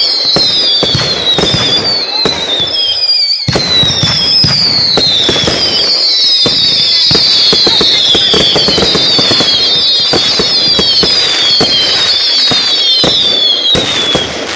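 Fireworks display with many whistling fireworks screaming at once. Each whistle falls in pitch over about a second and overlaps the next, over a dense crackle of small pops.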